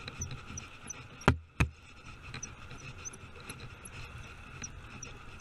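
Spinning reel being cranked, with faint regular ticking over a steady hiss, and two sharp knocks a third of a second apart about a second in.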